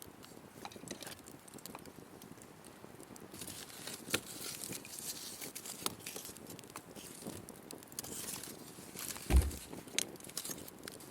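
Wood fire crackling, with scattered sharp pops and snaps, and a single dull low thump about nine seconds in.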